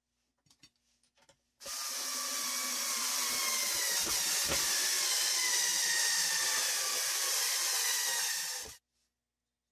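Power drill driving screws through a metal shelf bracket into a wooden board, running steadily for about seven seconds with its pitch sagging slightly under load, then stopping sharply. A few light clicks of the bracket and screws being handled come first.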